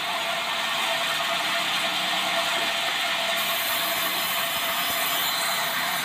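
Vertical band saw cutting through a debarked meranti board, a steady high-pitched rushing noise of the blade in the wood along with the running machinery.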